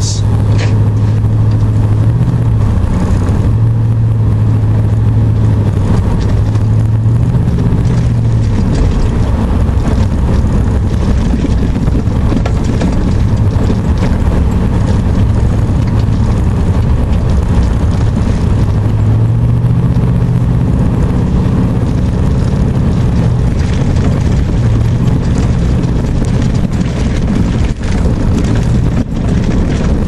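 Truck engine running and tyre noise heard from inside the cab while driving on a muddy dirt road, the engine note stepping up and down a few times as the speed changes.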